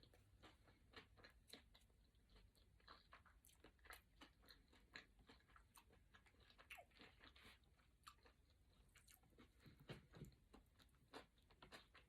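Faint, irregular crunching as a mouthful of crispy California roll sushi is chewed close to the microphone.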